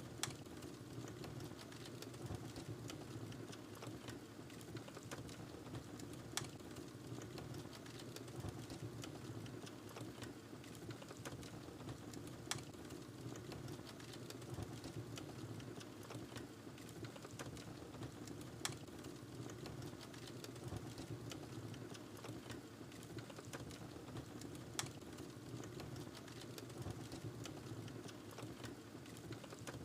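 Wood fire burning in a fireplace: a steady low rumble and hiss of flames with many small crackles, and a sharper pop about every six seconds.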